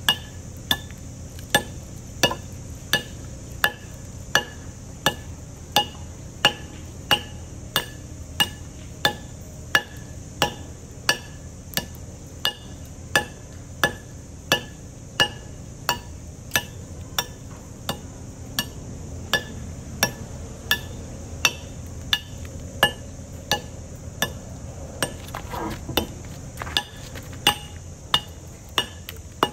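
Steel hammer striking a cold chisel held against a precast concrete slab, chipping it to size, in a steady rhythm of about three blows every two seconds. Each blow gives a sharp clink with a short metallic ring.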